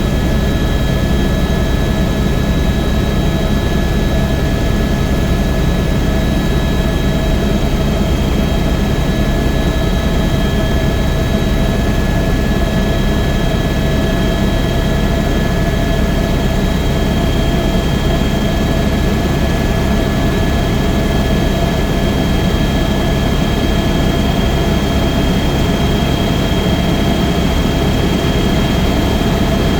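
Helicopter turbine engine and rotor running steadily: a dense low rumble with a constant high whine on top.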